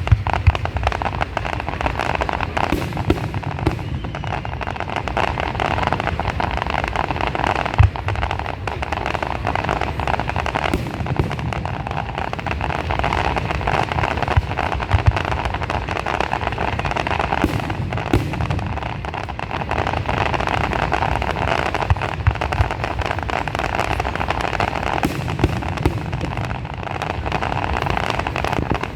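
Fireworks display going off without a break: dense crackling over a bed of deep booms, with scattered sharp bangs and one especially loud bang about eight seconds in.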